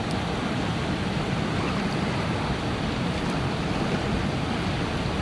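River rapids rushing steadily, a continuous whitewater roar with no break.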